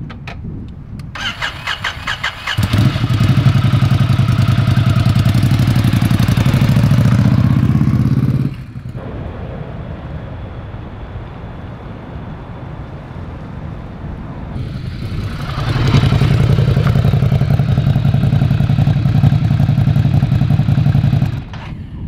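Ducati Scrambler Desert Sled's air-cooled L-twin with a Termignoni exhaust being started: the starter cranks for about a second and a half, then the engine catches and idles loudly and steadily. The sound breaks off suddenly, and a quieter stretch with a faint steady hum follows. The engine is then heard running again and stops abruptly near the end.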